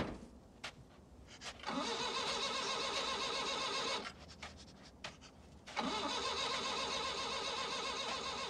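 A car engine being started twice. Each attempt opens with a short rising sweep and then runs steadily, the first for about two seconds and the second for about three and a half, with a short quieter gap between them.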